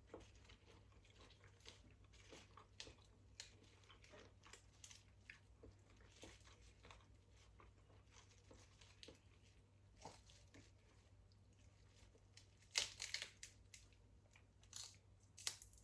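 A person eating close to the microphone: faint, steady chewing and small mouth clicks, with louder crunchy bites about 13 seconds in and again near the end.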